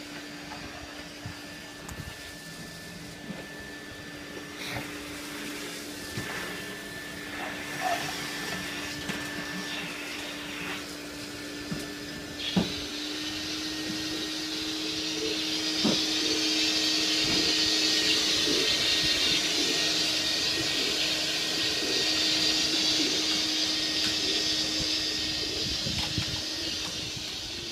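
Vacuum cleaner running with a steady motor hum. About twelve seconds in its pitch rises slightly and a loud hiss builds, easing off again near the end, with a few scattered knocks.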